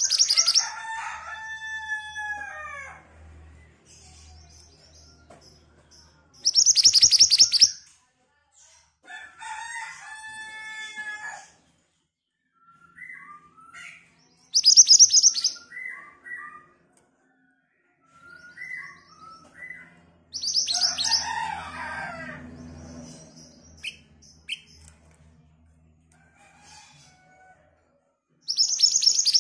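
Caged minivet singing: loud, rapid, high trilled phrases repeated about every six to seven seconds, with softer, lower falling whistled notes in between.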